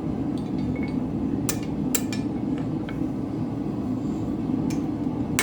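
Steady noise of a running forge, with a few sharp metal taps and clinks as a nail stuck in the nail header is worked loose.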